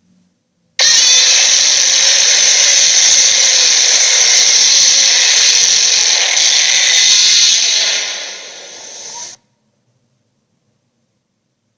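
A loud, steady hiss that starts abruptly about a second in, dips near the end and cuts off sharply after about eight and a half seconds.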